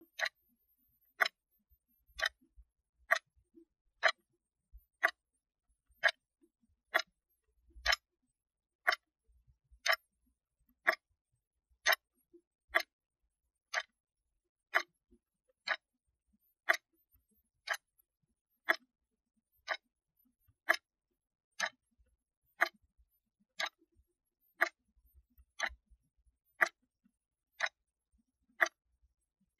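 A wristwatch ticking steadily, about one tick a second.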